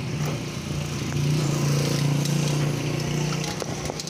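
A motor vehicle's engine running close by with a steady hum that grows louder about a second in and eases off toward the end, against street noise.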